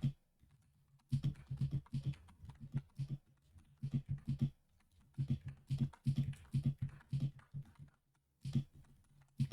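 Keycaps being pushed onto the Gateron G Pro 2.0 Brown switches of a mechanical keyboard, making plastic clacks in quick irregular clusters that start about a second in, with a short pause near the end.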